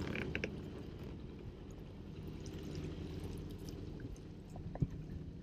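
Sailboat's engine running steadily at low revs in reverse, pulling back against the anchor to set it, with faint water sounds along the hull and a single knock near the end.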